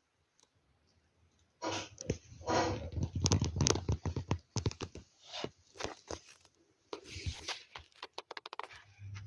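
Nylon tent fabric rustling and scraping, starting about a second and a half in, with many sharp clicks and a quick run of clicks near the end.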